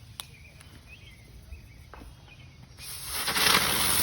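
Faint repeated chirps and a few small clicks, then nearly three seconds in a small ground firework catches and sprays with a loud, steady hiss.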